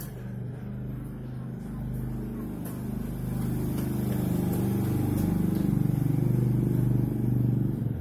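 A motor engine running steadily with a low hum. It grows louder from about halfway through and drops away at the end.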